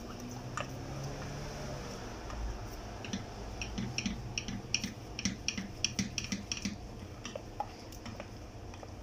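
Wooden spoon stirring thick caramel sauce in a stainless-steel pot. It knocks lightly against the pot's side in a run of short clicks, about two or three a second, starting about three seconds in.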